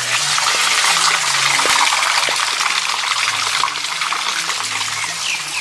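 A small mountain stream rushing and splashing down its ditch in a steady rush of water, with a few bird chirps near the end.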